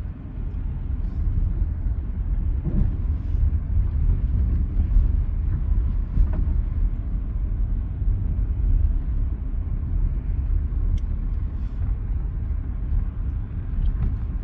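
Steady low rumble inside the cabin of a Maruti Suzuki Baleno creeping over a rough, unpaved dirt-and-stone track: engine and tyres on loose ground, with a few faint knocks.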